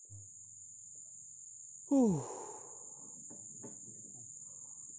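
Steady high-pitched drone of insects in the forest, with a short, loud, falling vocal grunt from a man about two seconds in. Faint knocks and sloshes follow.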